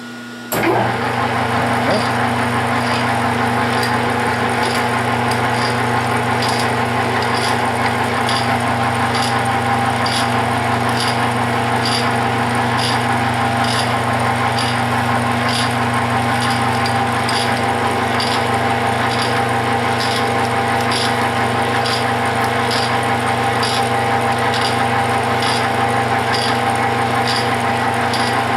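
Metal lathe starting up about half a second in, then running steadily at about 300 rpm in high range: a steady motor and gear hum with a light, regular ticking.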